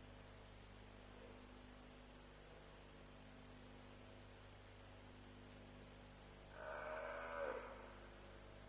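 An African buffalo bawling once, about a second long, near the end, its pitch dropping as the call trails off; a distress call from an animal at a lion kill. Before it there is only a faint steady low hum.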